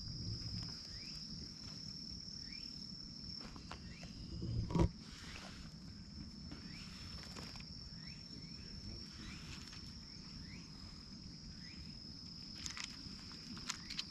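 An insect's steady high-pitched trill, with faint short rising chirps every second or so and a brief knock about five seconds in.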